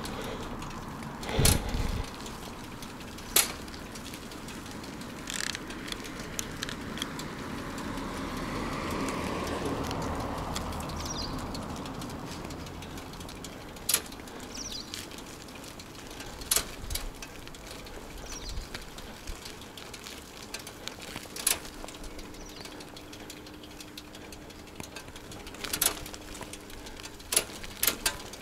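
Bicycle riding: about nine sharp clicks and knocks from the bike's parts over a steady rush of road noise.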